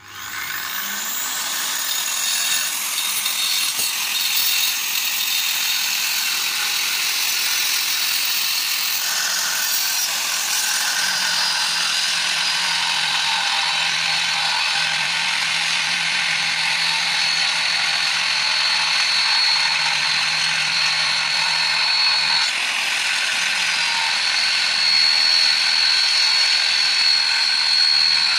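Angle grinder starting and spinning up, then running steadily while the remnant of its jammed cutting disc and the seized clamping nut are ground against the edge of a steel bar, with a steady high-pitched whine over a harsh grinding noise. The grinding wears away the stuck disc so that the nut can be undone.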